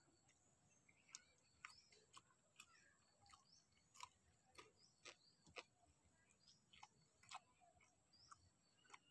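Near silence with faint, irregular clicks of eating: a man chewing and working rice with his fingers on a steel plate.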